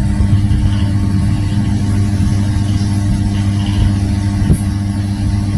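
A steady low mechanical hum, like a motor running.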